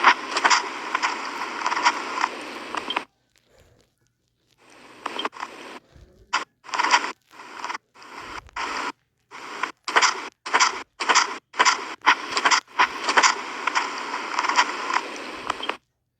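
Harsh scraping noise: one steady stretch of about three seconds, then, after a pause, a run of short uneven bursts that join into a longer stretch near the end and stop abruptly.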